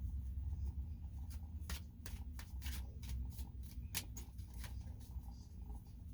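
Tarot cards being shuffled and handled by hand: a quick run of card clicks and snaps, loudest about four seconds in, over a low steady hum.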